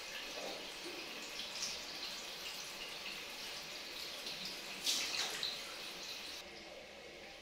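Handheld shower head spraying water into a shallow aluminium basin: a steady hiss of spray with small splashes, and a louder splash about five seconds in.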